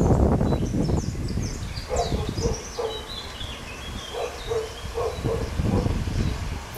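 A dog barking in two short runs of quick barks, with birds chirping faintly above. A low rumble is loudest in the first second and fades to a steady background.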